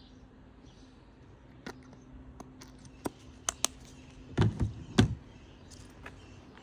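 Several light clicks and taps, then two heavier knocks about half a second apart, over a faint steady hum.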